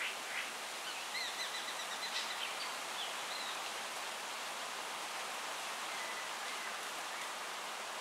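Greater racket-tailed drongo calling: a few short clipped notes at the start, then a run of high whistled notes with short slurs for a couple of seconds, and one faint note later, over a steady background hiss.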